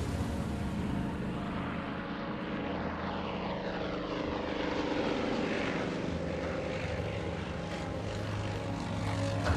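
Propeller aircraft engines running with a steady drone, their pitch sweeping in the middle as the aircraft pass.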